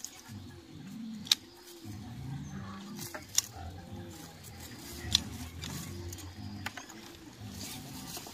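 Scissors snipping through tomato stems: three sharp snips, roughly two seconds apart, with lighter clicks of the blades between them. Under them runs a low, repeating call-like sound.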